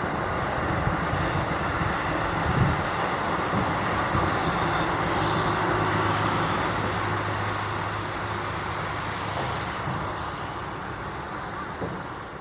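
Electric commuter train running past on the rails, a steady rolling rumble with a low motor hum, growing gradually quieter toward the end.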